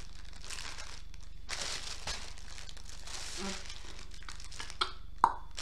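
Clear plastic bag of diamond-painting drill packets crinkling and rustling as it is handled, in several bursts, with two sharp clicks near the end, the second the loudest.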